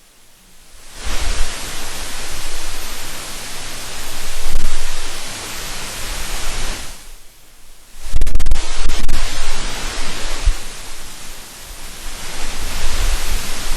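Loud rushing hiss of a candle flame's flickering light turned into sound by a phototransistor plugged into a digital voice recorder. It comes in two long swells with a short dip about seven seconds in, and a low, uneven flutter runs underneath.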